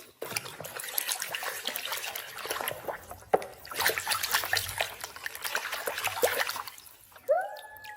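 Water splashing and trickling while a toy car is washed by hand, in two stretches with a short break about three seconds in.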